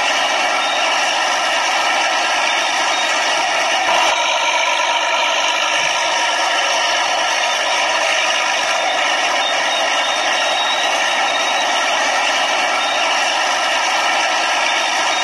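A steady, buzzy, engine-like drone with a rattle for a toy tractor. It is high-pitched with no deep rumble and barely changes.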